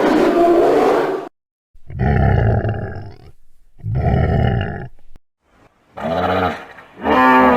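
Deep animal calls in separate bouts: a long roar, then two rough, low calls. From about six seconds in come a hippopotamus's pulsed grunting calls.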